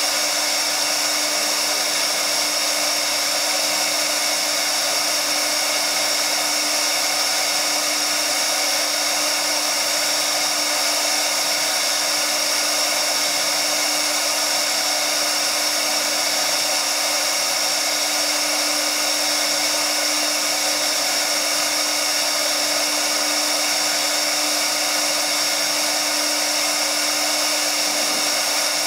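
TipTop 1325 CNC router spindle running at high speed, its carving bit cutting relief into MDF board: a loud, steady, high-pitched whine.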